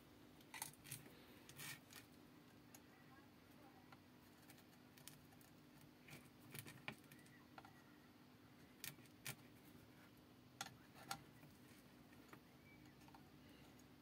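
Near silence: faint, scattered small clicks from wires and a soldering iron being handled against a circuit board, over a steady low hum.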